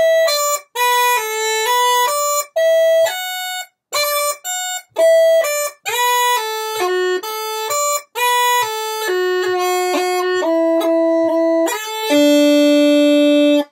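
Uilleann pipes chanter playing the first part of a reel, without drones: a run of bright reedy notes, many cut off by short silences in the tight, closed style, with rolls on F sharp and E near the end of the part. It finishes on a long held low note.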